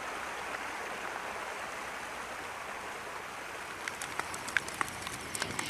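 Steady hiss of a running creek, joined from about four seconds in by the sharp crackles and pops of a wood fire.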